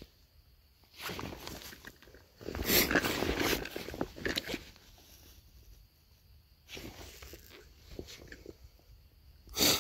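Footsteps crunching and rustling through dry grass on a stream bank, in a few irregular bursts, the loudest about three seconds in, with a short sharp rustle just before the end.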